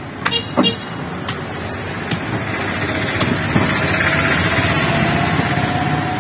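A motor vehicle's engine passing close by, its noise swelling to a peak about four seconds in and then easing, with a faint tone slowly rising in pitch. A few sharp clicks in the first second.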